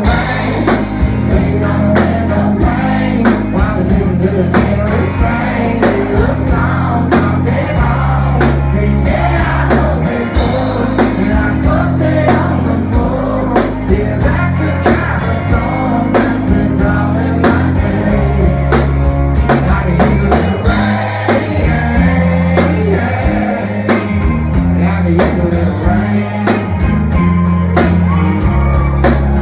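Live country band playing loud, with a male lead singer over drums, electric bass and guitars, and a steady drum beat.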